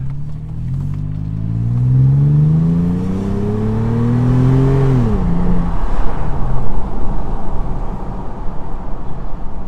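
Toyota 4Runner 4.0-litre V6 through a Borla S-Type stainless cat-back exhaust, heard from the cabin, accelerating hard. Its note climbs steadily for about four seconds, then drops away sharply. After that comes an uneven rushing of wind and road noise.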